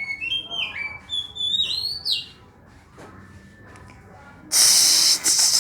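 Oriental magpie-robin (kacer) singing a run of clear, stepping whistled notes for about two seconds. About four and a half seconds in, a loud steady hiss starts and runs on.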